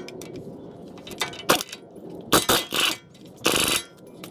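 Metal tools clinking and scraping on the truck's front axle nut, with a sharp click about a second and a half in and a few short, noisy bursts of half a second or so near the end.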